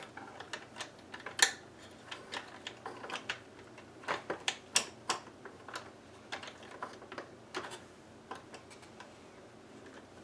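Irregular light clicks and taps of small plastic parts being handled and fitted together, as the toy dashboard's shifter linkage is reassembled. The sharpest click comes about a second and a half in, with a quick run of taps a few seconds later.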